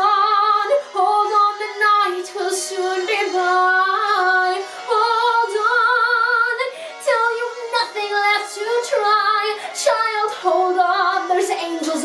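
A woman singing solo in a musical-theatre style, with long held notes and vibrato.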